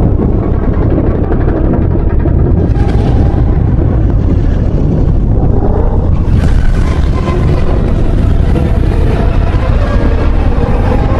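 Made-up giant-monster sound effect: a loud, continuous deep rumbling roar that swells with harsher noise about three seconds in and again about six seconds in.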